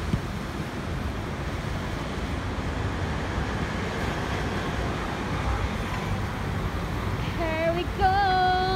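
Steady street traffic and road noise, heard while riding slowly along a city street. Near the end come two short held notes, the second higher and louder.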